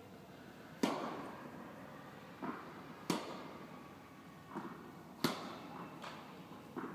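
Tennis ball struck hard with a racket three times, about two seconds apart, each hit ringing out in a large echoing indoor hall; a softer thud of the ball bouncing on the clay court comes just before each hit.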